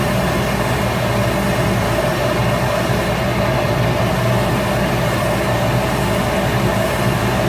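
Shop Fox W1836 midi wood lathe running steadily, its motor humming at a constant speed.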